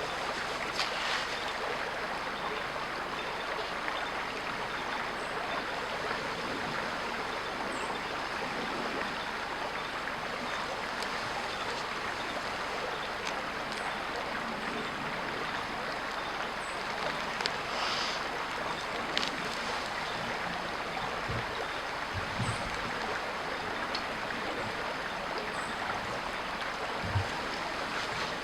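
Steady rush of a creek's running water, with a few faint clicks and some brief low knocks in the second half.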